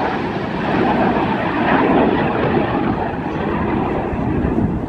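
Red Arrows BAE Hawk jet passing by in display, its jet noise swelling to a peak about two seconds in and then easing off.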